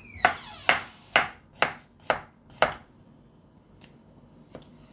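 Kitchen knife slicing a garlic clove on a cutting board: six crisp strokes about two a second, stopping a little under three seconds in, followed by a few faint ticks.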